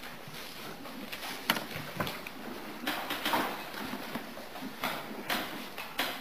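Pen scratching on lined paper in short strokes while writing, with a sharp tap about one and a half seconds in.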